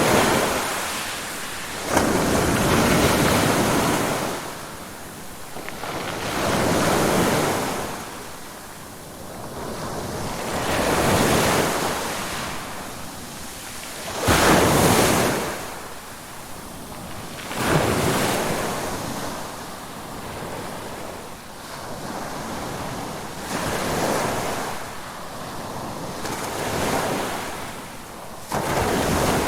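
Ocean waves breaking and washing up the shore in surges every three to four seconds, a few of them starting with a sudden crash.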